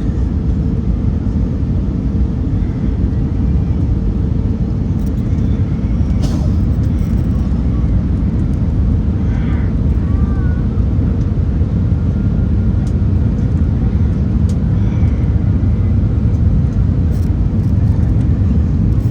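Airbus A319 jet engines running steadily, a loud low rumble with a steady hum over it.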